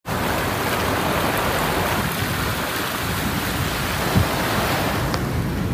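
Floodwater rushing and splashing steadily as a vehicle ploughs through a flooded road, its wake churning along the vehicle's side.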